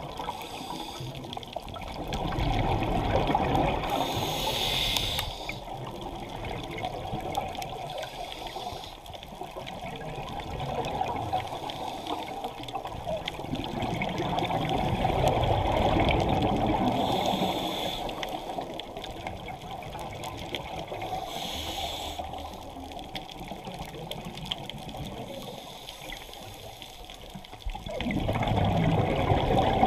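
Scuba diver breathing through a regulator, heard underwater: slow breaths, each inhale a short high hiss and each exhale a long gurgling rush of bubbles, about four in all.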